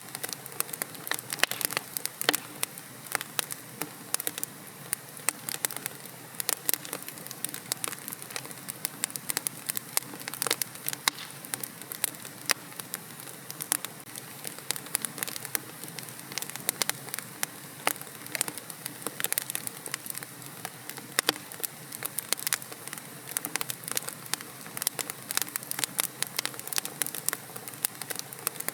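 Wood fire burning in a fireplace, crackling and popping with many quick sharp snaps over a steady soft hiss.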